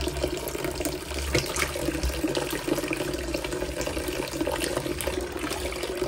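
Kitchen tap running steadily into a plastic bowl in a stainless-steel sink, with small splashes as raw chicken pieces are rinsed by hand in the water.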